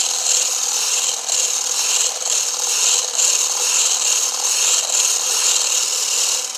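Electric immersion blender running with its wire whisk attachment, whipping egg whites in a plastic beaker as they begin to froth. A steady motor hum sits under a high, airy whir of the whisk churning the liquid, swelling and dipping slightly as the whisk moves.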